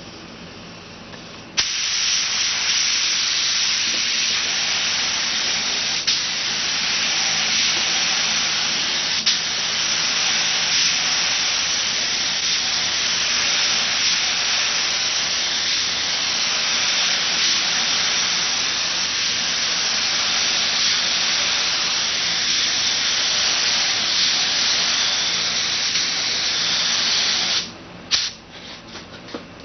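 Compressed-air gravity-feed spray gun hissing steadily as it sprays a medium-to-heavy coat of paint, starting about a second and a half in. Near the end the hiss stops, then comes in a few short bursts as the trigger is pulled and released.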